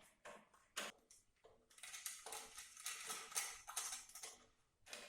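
Faint clicks, then a run of quick metallic scraping and rattling from about two to four and a half seconds in: small bolts, a wrench and a plastic reflector being handled while a reflector is bolted onto a bicycle mudguard.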